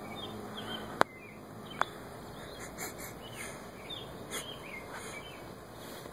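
Quiet outdoor background with faint, scattered bird chirps and two sharp clicks about one and two seconds in.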